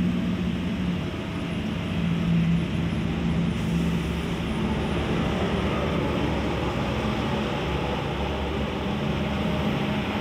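Steady low engine hum with constant background noise.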